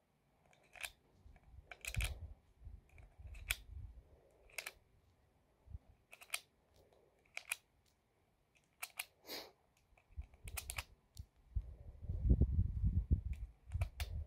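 .22 LR cartridges being thumbed one at a time into a rifle magazine, a sharp click with each round, roughly once a second at uneven spacing. A low rumble of handling joins in near the end.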